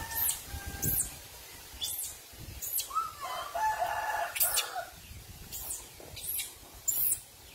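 A rooster crows once, starting about three seconds in and lasting about a second and a half, over short high chirps that repeat about once a second.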